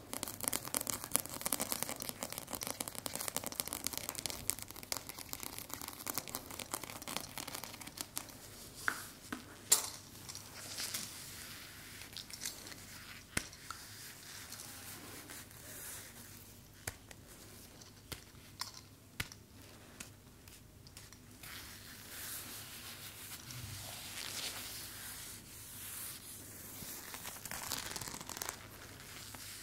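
Close-miked ASMR trigger sounds of an object being handled. There is dense, fast crackling for the first several seconds, then scattered sharp clicks over softer rustling.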